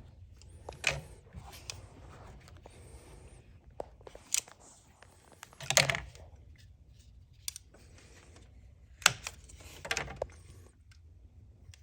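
Irregular clicks, knocks and rattles of plastic and metal parts being handled while working on a car, with light rustling between them.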